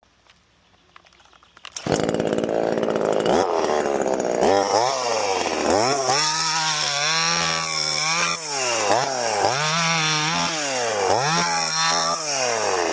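Small two-stroke gas chainsaw engine coming in suddenly about two seconds in, then revved up and dropped back over and over, its pitch climbing and falling with each blip of the throttle.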